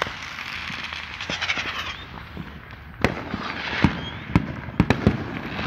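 Fireworks going off, with several sharp bangs in quick succession from about three seconds in.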